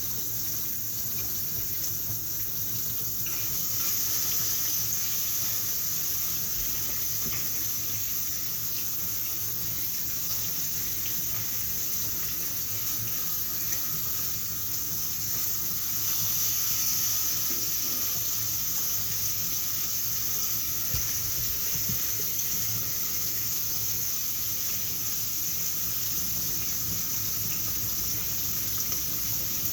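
Water running steadily from a kitchen tap into a sink, a little louder from about four seconds in.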